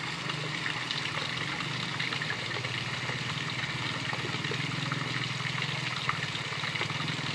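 Water splashing and trickling with many small splashes as a netful of stinging catfish (shing) fingerlings wriggles at the surface, over a steady low machine hum.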